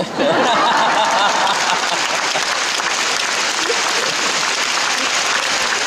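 Large audience applauding steadily, with voices calling out over the clapping in the first second or two.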